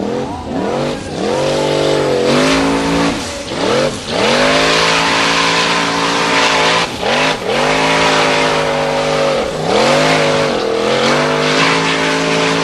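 Formula Offroad buggy's engine at full throttle on a steep dirt hill climb, revving up, dropping back and revving again every second or two as the throttle is worked and the wheels spin for grip.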